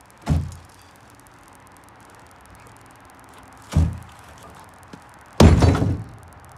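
Three heavy thumps from a John Deere Gator's tipping cargo bed: two short knocks, then the loudest, a longer clattering bang about five and a half seconds in as the raised dump bed comes down onto the frame.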